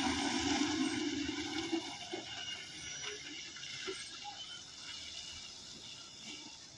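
Tata 12-wheel truck's diesel engine running as the truck pulls away, loud for about the first two seconds and then fading steadily.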